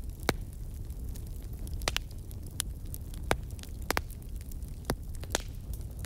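Crackling fire: irregular sharp pops and snaps, several a second at times, over a steady low rumble.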